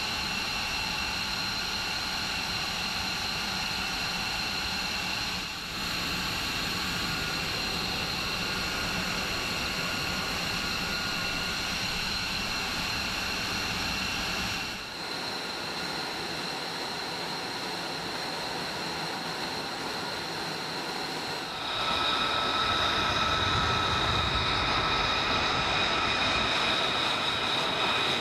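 Jet engine of an F-35 fighter running at idle: a steady high turbine whine of several tones over a rushing noise. It changes abruptly twice and is louder for the last several seconds.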